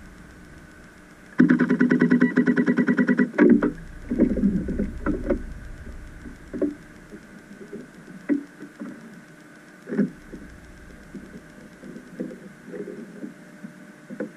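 Underwater ROV's electric thrusters running in a short burst about a second and a half in, then scattered knocks and clicks.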